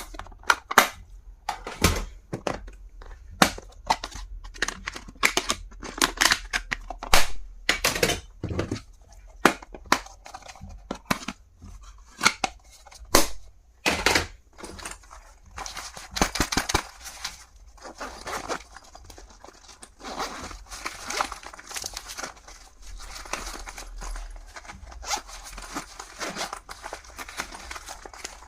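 Stationery and its packaging being handled: a quick run of sharp clicks and snaps, then from about halfway a steady rustling and crinkling of plastic or paper wrapping.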